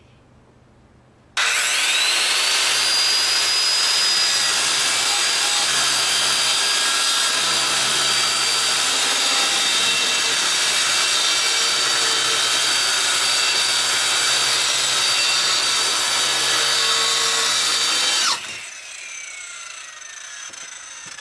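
Handheld circular saw (Skilsaw) spinning up about a second in with a rising whine, then running and cutting a board with a steady high whine for about seventeen seconds. It is then released and winds down with a falling whine. The cut is made on a board that wobbles without proper support, which the owner blames for the saw kicking.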